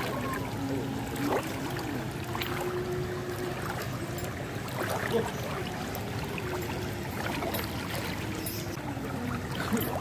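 Brown floodwater rushing and flowing steadily through a flooded street, an even wash of water noise. A faint hum underneath steps up and down in pitch a few times.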